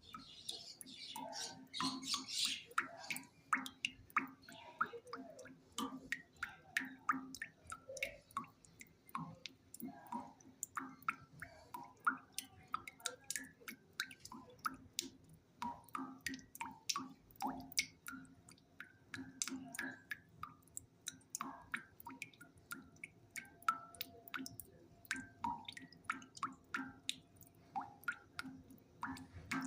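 A long run of short, irregular clicks and pops, several a second, over a low steady hum.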